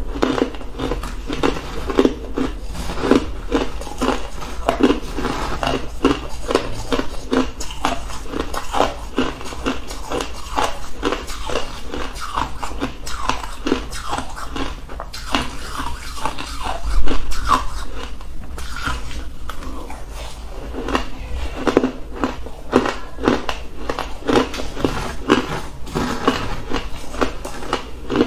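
Shaved ice being bitten and chewed close to the microphone: a dense, continuous run of crisp crunching crackles, with one louder crunch a little past halfway.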